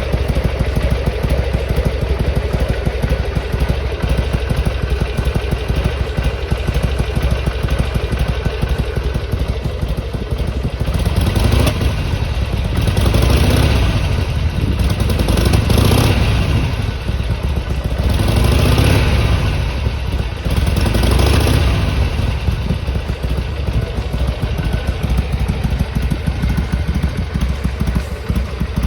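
Harley-Davidson Sportster XL883R V-twin idling as it warms up, blipped up and back down about four times in the middle stretch before settling back to idle.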